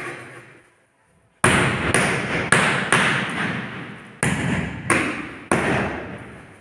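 Large ceramic floor tile being knocked down into its mortar bed: about eight sharp knocks, roughly one every half second to second, starting about a second and a half in. Each knock rings out and echoes.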